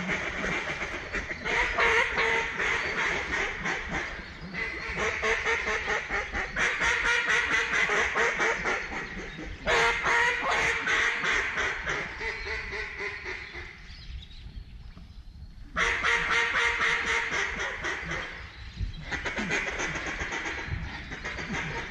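Rapid duck quacking and chatter in long runs. The runs start and stop abruptly, and the sound drops away for about two seconds around two-thirds of the way through.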